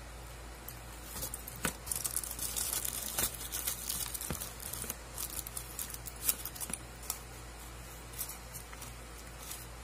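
Aluminium foil crinkling and crackling as a wrapped food parcel is opened by hand, busiest in the first half, then thinning to a few scattered crackles and clicks.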